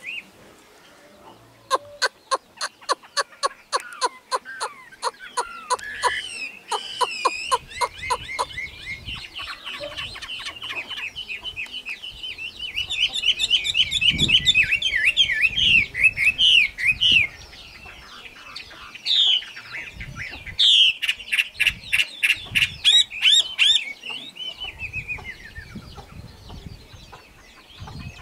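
Chinese hwamei singing a long, varied song: first a run of rapid repeated whistled notes, about three or four a second, then a fast warble, and later loud rising and falling phrases.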